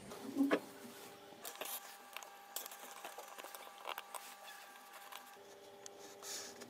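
Faint handling sounds of small tools on a workbench: a short knock about half a second in, then scattered light clicks and taps, over a faint steady hum.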